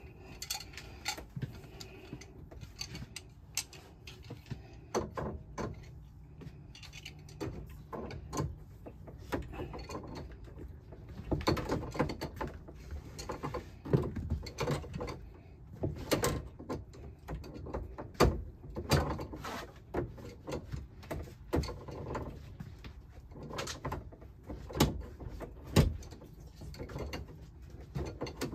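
Pliers clicking and knocking against brass compression fittings while the supply-hose nuts are tightened, with scattered handling knocks and rustles; the louder clicks come in clusters about halfway through and near the end.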